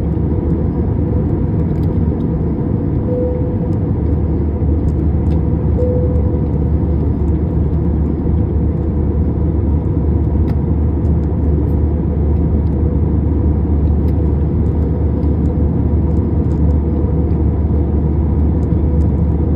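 Steady low drone inside an Airbus A321's cabin during the climb: the jet engines at climb power and air rushing past the fuselage, unchanging throughout.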